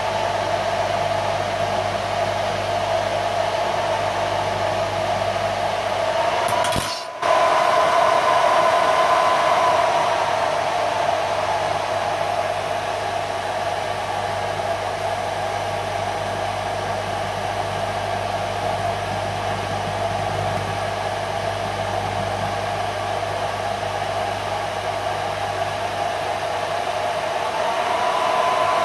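A GU-5B vacuum-tube Tesla coil running at 10–11 MHz, its RF plasma flame burning at the anode. It makes a steady blower-like hiss with a whine and a low hum. About seven seconds in the sound cuts out for a moment and then comes back.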